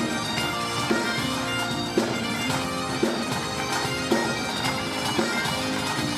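Background music: a reedy melody over a steady drone, with a beat about once a second.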